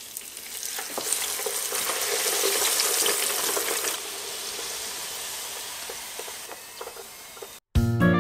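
Crinkle-cut fries frying in hot oil in an electric deep fryer: a dense sizzle full of small crackles, loudest over the first four seconds, then quieter and fading. Near the end it cuts off and keyboard music starts.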